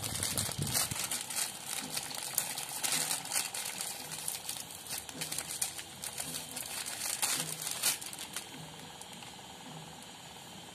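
Clear plastic packaging bag crinkling and crackling as hands unwrap a small electric coil immersion water heater. The crinkling dies down to faint handling noise about eight seconds in.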